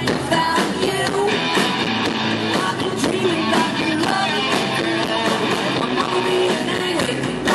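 Live rock band playing: electric guitars, bass and drums, with a woman singing lead.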